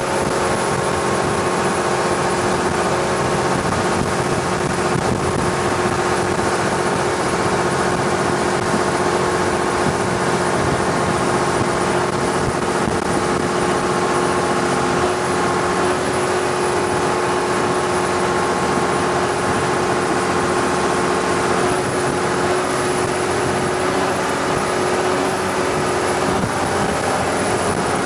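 Longtail boat's engine running steadily at cruising speed: a constant loud drone with a steady whine, over a broad hiss.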